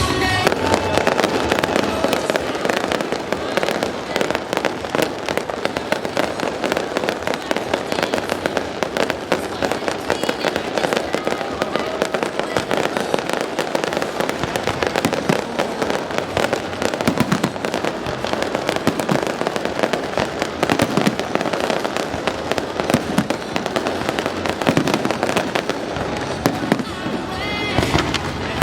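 Fireworks display: a dense, unbroken run of rapid crackles, pops and bangs.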